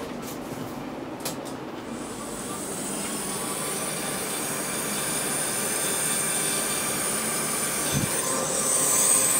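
Several small cooling fans inside a drive-thru order display spinning up after power-on: a steady whining hiss that grows gradually louder from about two seconds in, with a couple of clicks before it. The owner takes the whine for fan bearing noise.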